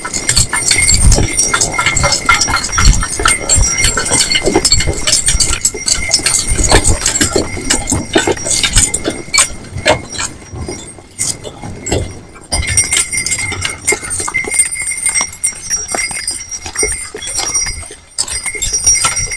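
Hooves of a team of two small horses clip-clopping as they pull a wagon over packed snow, with the harness and wagon fittings jingling and clinking. The hoofbeats fade for a couple of seconds about ten seconds in, then pick up again.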